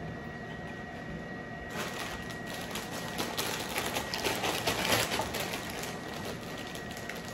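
A plastic bag of broccoli crinkling and rustling while florets are shaken out of it into a pan. It starts about two seconds in, is busiest just before the middle of the second half, and dies down near the end.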